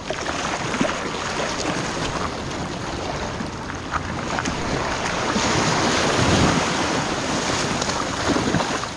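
Sea waves washing and surging against the rocks of a jetty, swelling louder in the second half, with wind buffeting the microphone.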